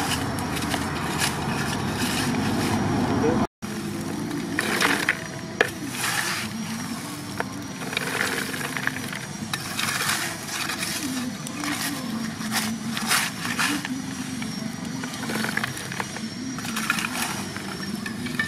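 Small spade scooping and scraping through a heap of lump charcoal, the pieces clicking and clattering as they are shovelled into a bucket, with people talking. The sound cuts out for a moment about three and a half seconds in.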